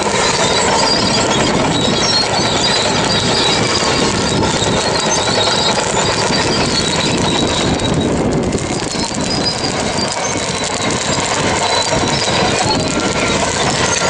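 Heavy diesel engine of a Caterpillar bulldozer running steadily under load.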